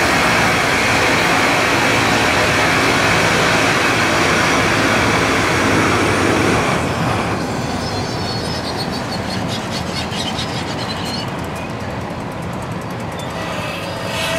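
Loram rail grinder's grinding wheels cutting down the top of the rail: a loud, steady, harsh grinding hiss. About seven seconds in it drops away as the grinding cars pass, leaving the lower rumble of the train rolling by with faint ticking.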